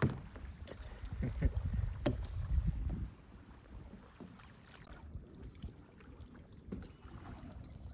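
Kayak paddles dipping and splashing in calm river water, with a few sharper splashes in the first three seconds. Wind rumbles on the microphone at first, then the water sounds go on more quietly.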